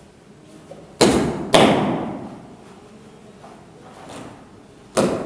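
Three sharp slaps from a pencak silat performer's movements, two about half a second apart about a second in and a third near the end, each with a short echo.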